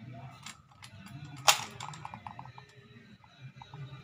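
Small plastic clicks and rattles as the fuel level sender connector on a fuel pump module is worked loose by hand, with one sharp click about a second and a half in.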